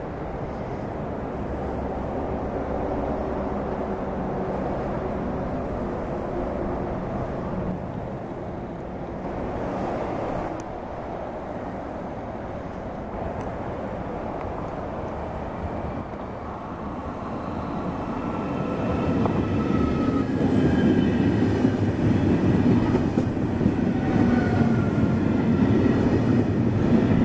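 Italo AGV high-speed electric train arriving at the platform. Its rumble grows louder about two-thirds of the way through as it draws alongside, with a high whine of several tones while it slows.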